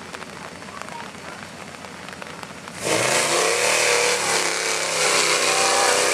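Pickup truck engine revving hard as the truck launches into a mud pit. It comes in suddenly and loud about three seconds in, rises quickly in pitch and then holds at high revs.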